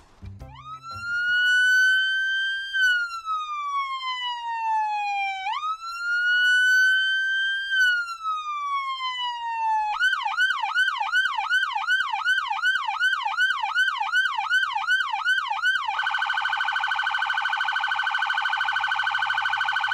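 Police car's electronic siren: two slow wails rising and falling, then about ten seconds in a fast yelp of about three sweeps a second, and near the end a rapid warble at a steady pitch.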